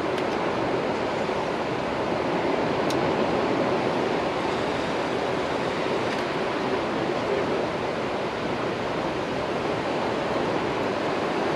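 Steady, unbroken rush of water pouring through a river dam, with one faint click about three seconds in.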